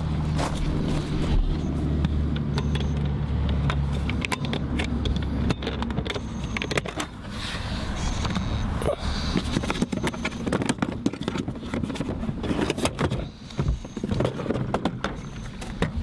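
Footsteps on gravel, then a run of clicks and knocks as a caravan's toilet cassette service door is opened and the plastic Thetford cassette is slid out of its compartment. A low steady hum sounds under the first four seconds, then stops.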